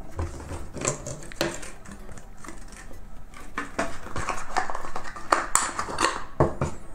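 Cardboard phone packaging being handled: rustling and scraping with many light taps and clicks as the box insert is lifted out and a wall charger is unwrapped.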